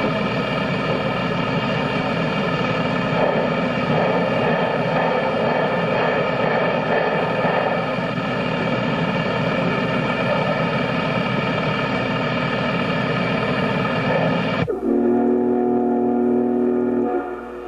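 Southern 2716, a 2-8-4 steam locomotive, working close by under steam: a loud, steady, dense running sound. About fifteen seconds in the sound cuts abruptly to a steam whistle blowing a steady chord for about two seconds.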